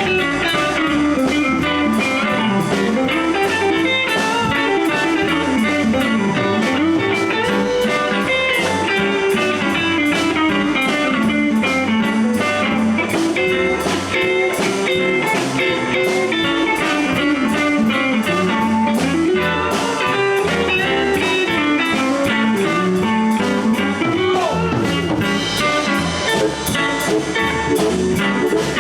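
Live blues band playing an instrumental break between sung verses, with electric guitar to the fore over bass and drum kit.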